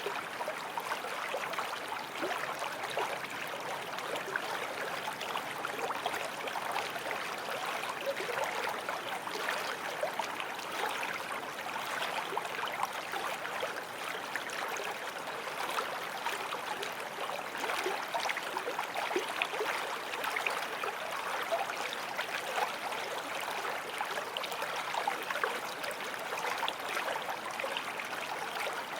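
Small forest stream flowing over stones, a steady babbling rush of water with many small splashes and gurgles.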